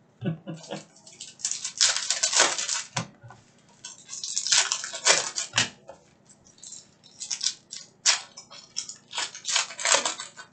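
Foil trading-card pack wrappers crinkling and tearing as packs are ripped open and handled, in repeated irregular bursts.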